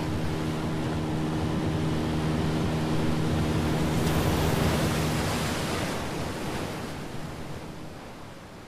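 Small motorboat's engine droning steadily over the rush of its wash and wind. The engine hum drops out a little past halfway as the water rush swells, then the whole sound fades away.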